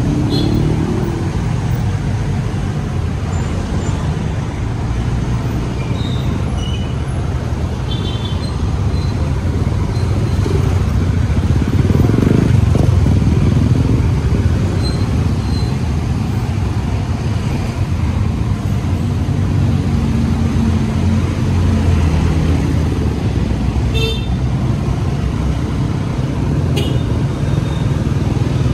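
Riding a Suzuki scooter in city traffic: a steady low engine and road rumble mixed with passing cars and motorcycles, swelling louder about twelve seconds in, with a few brief high beeps.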